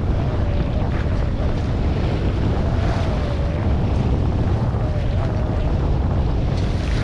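Wind buffeting the microphone on a small sailboat under sail, a steady low rumble with the rush of sea and hull underneath. A faint, slightly wavering whine comes and goes over it.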